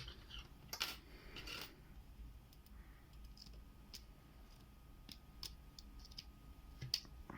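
Lock pick working the pins of a small 30 mm Bastion padlock: faint, scattered metallic clicks and light scraping, with a busier patch of handling in the first couple of seconds.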